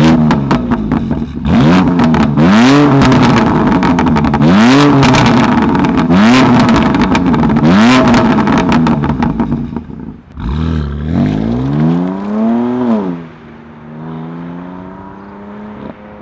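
BMW M2 Competition's 3.0-litre twin-turbo straight-six revved hard through its competition exhaust, with about four quick blips and sharp pops between them. It then revs up once more and pulls away, its note settling lower and fading as the car drives off.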